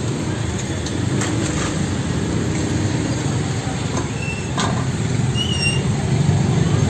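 Motorbike and three-wheeler engines in slow street traffic close by, a steady drone, with a few short clinks and knocks.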